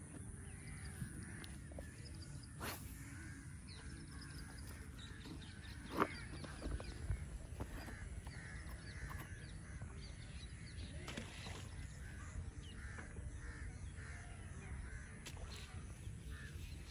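Crows cawing repeatedly over a low rumble, with a few sharp clicks; the loudest comes about six seconds in.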